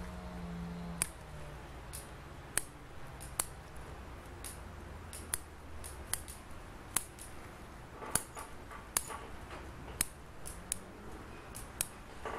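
Steel bonsai scissors snipping Japanese black pine needles: a run of sharp, irregular snips, roughly one or two a second, as the needles are thinned out.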